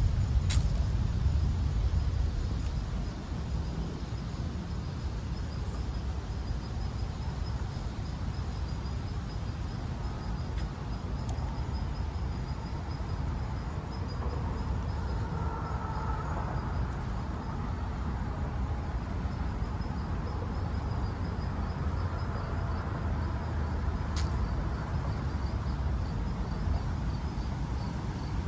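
Steady low rumble of outdoor background noise, with a faint, high, rapidly repeating chirp running through it.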